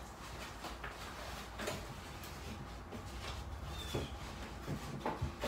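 A few faint knocks and clicks of kitchen items being handled while ingredients are gathered, with a brief high squeak about four seconds in.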